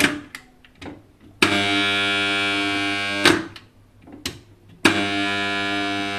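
Submersible pump starter's contactor buzzing loudly with a mains hum, switched on and off: it cuts out with a click at the start, then comes back for two spells of about two seconds each with quiet gaps between. The buzz is the sign of a fault in the contactor (relay), whose contacts are not closing cleanly.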